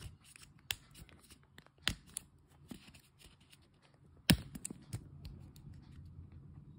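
Paperboard smartwatch box and its cardboard inserts being handled: scattered taps, scrapes and rustles, with a sharp knock about four seconds in.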